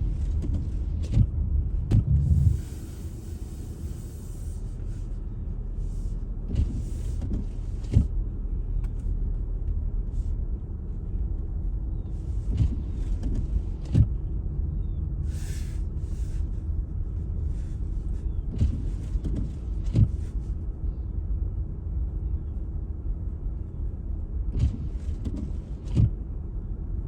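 Car cabin road noise while driving: a steady low rumble with a faint hum, and a short knock about every six seconds.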